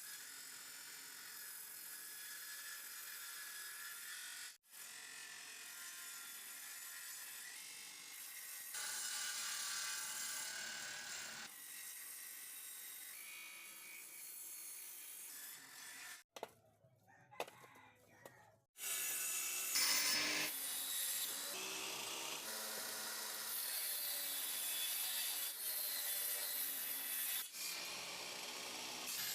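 Wood being sawn and worked with tools, in several short edited clips with abrupt cuts between them; the sound is louder in the last third.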